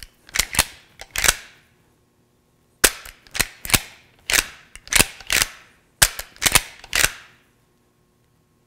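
The lever action of a Tristar LR94 .410 shotgun being cycled open and shut several times, the aluminium-receivered action giving sharp metallic clacks in quick groups of two or three, with short pauses between strokes.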